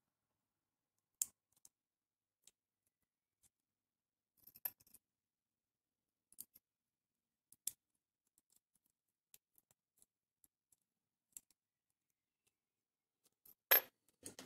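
Small, sharp metallic clicks from a thin steel tool prying and scraping at the rivet of a radio I.F. transformer, a handful of them a second or more apart, with a louder scraping click near the end.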